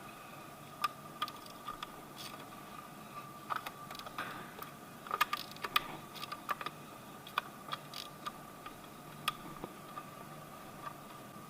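Hand tools and small metal parts clicking and knocking at irregular intervals while the valve cover of an engine is unbolted, over a faint steady high hum.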